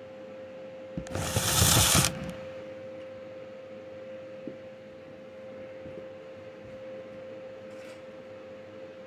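A short welding burst of about a second, starting about a second in, crackling and hissing, over a faint steady hum.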